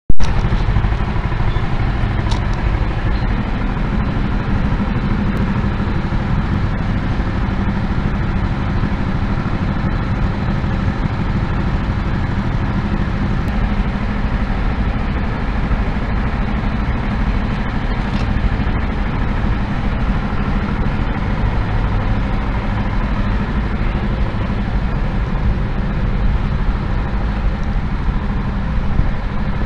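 Several go-kart engines running steadily close by, a constant mechanical drone with no clear revving. A sharp click at the very start.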